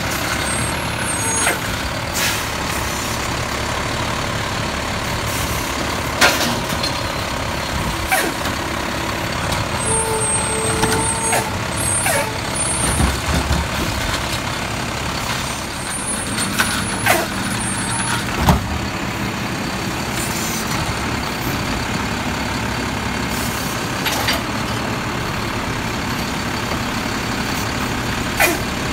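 Automated side-loader garbage truck running at the curb while its hydraulic arm grabs, lifts and dumps recycling carts: a steady diesel engine run with several sharp clanks from the arm and carts.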